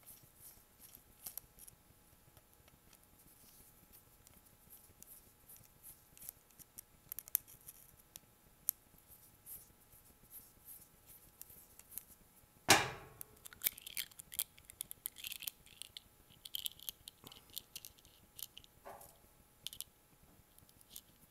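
Screwdriver turning out the small cover screws on a Zama diaphragm carburetor: light metallic clicks and scraping, with one louder clunk about 13 seconds in.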